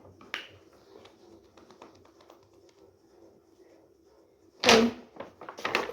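Quiet room with faint handling noises, then one loud, sudden bump or rustle nearly five seconds in.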